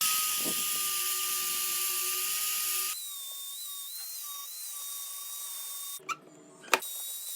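A small high-speed power tool whining steadily. There is a loud hiss over about the first three seconds, then it runs on more quietly with a slightly wavering pitch. A short rattle and a sharp click come near the end.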